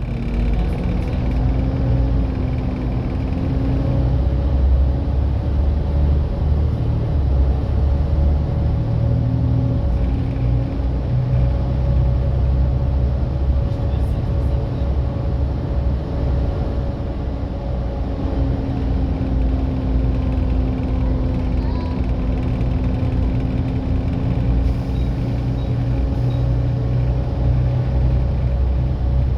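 Volvo B7TL double-decker bus's turbocharged diesel engine running steadily under way, a low drone with a held, slowly shifting whine: the 'hoovering' sound.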